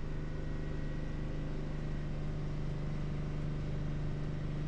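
A motor boat's engine idling steadily with an even low hum while the boat is eased into a lift sling.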